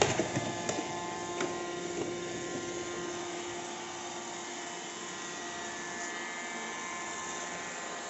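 iRobot Roomba 780 robot vacuum running, its suction fan and brush motors making a steady whirring hum, with a few light clicks in the first two seconds.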